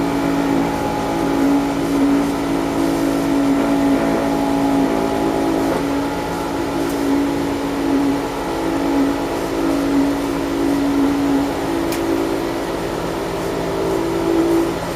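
Carrier central A/C compressor running with a steady, loud hum and a few fainter tones above it. It is drawing high amperage, the fault that trips its overload switch.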